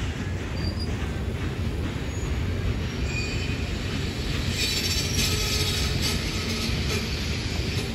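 Passenger cars of a steam-hauled train rolling past, a steady rumble of wheels on the rails with faint brief high wheel squeals, the hiss and squeal strongest around the middle.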